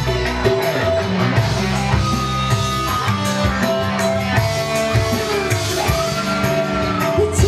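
Live dangdut band playing an instrumental passage: keyboard melody and hand drums over a steady beat.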